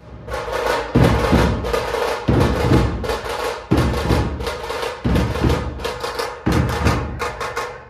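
Drum percussion: a heavy beat about every second and a half, with rapid strokes in between.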